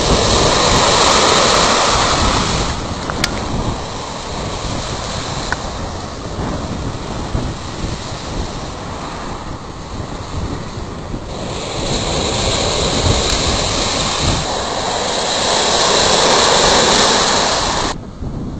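Ice shove: sheets of broken shore ice pushing and piling up, a steady hissing, tinkling crackle of shards grinding over one another. It swells loudest in the first few seconds and again from about twelve to eighteen seconds in, then drops away sharply near the end.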